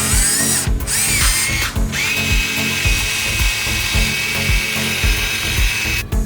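High-pitched whine of a small electric motor, rising in pitch in short spurts and then holding one steady pitch for several seconds before cutting off near the end, over background music with a steady beat.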